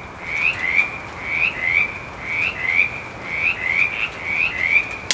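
Frogs calling: high, short rising peeps, in pairs that repeat about once a second. A single sharp crack right at the end is a 9mm pistol shot at the range.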